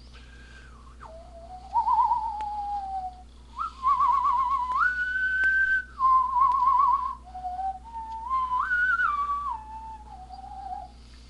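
A person whistling a tune: a single clear note stepping and gliding up and down through several phrases, with a warble on some held notes.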